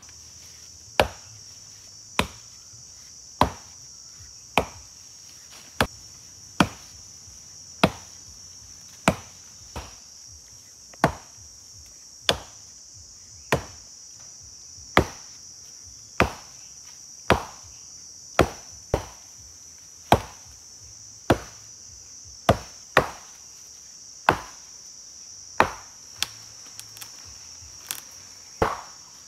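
Stone axe chopping into a small tree trunk, sharp blows landing about once a second, over a steady high drone of insects.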